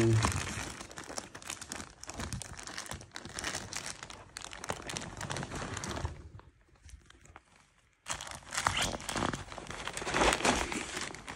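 Clear plastic inflation bag crinkling as it is gripped and worked at a camping air mattress's valve. The crinkling stops for about a second and a half a little past the middle, then starts again.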